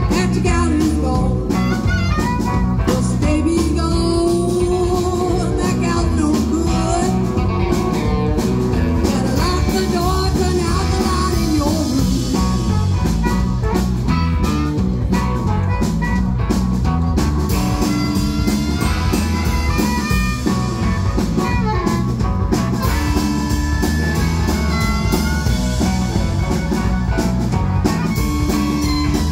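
Live blues band: harmonica played into a cupped microphone, with electric guitar, electric bass and drum kit.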